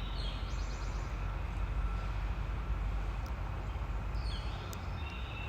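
Outdoor ambience: a steady low rumble, with a small bird's short chirping calls near the start and again about four seconds in.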